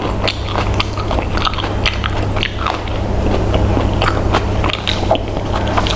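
A person chewing and biting food up close, with many small irregular crunchy clicks and smacks, over a steady low hum.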